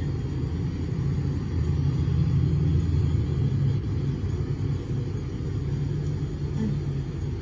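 Steady low rumble of a van's cabin, engine and road noise, swelling slightly a couple of seconds in. It was picked up by the van's dashcam and is heard played back through a computer speaker.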